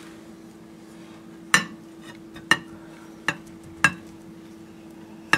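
Sharp clinks on glass mixing bowls, five at irregular spacing, as fish pieces are dredged and pressed into breadcrumbs by hand. A faint steady hum runs underneath.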